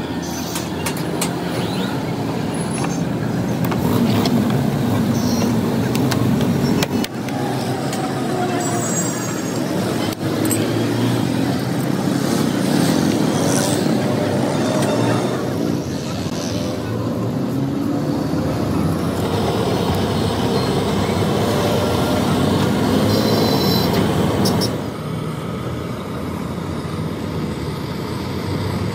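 Steady motor-vehicle and road-traffic noise, with voices mixed in.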